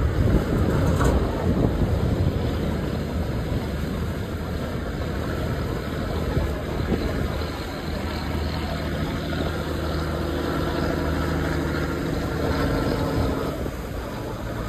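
Motorised boat engine running steadily with a low hum. From about eight seconds in until near the end, a set of engine tones stands out more clearly.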